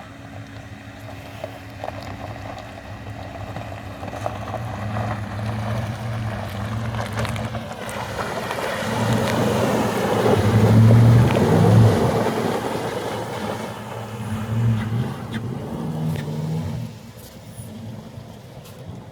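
Dodge Durango SUV engine pulling through river water, its pitch rising and falling, with water rushing and splashing around the vehicle. It grows loudest a little past the middle and fades near the end.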